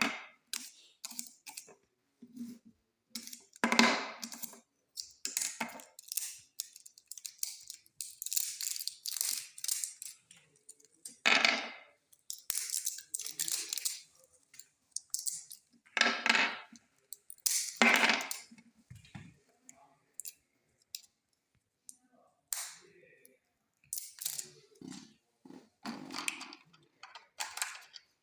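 Handling noises of AA batteries being fitted into the plastic battery compartments of a toy RC car and its remote: irregular clicks, taps and short plastic rustles.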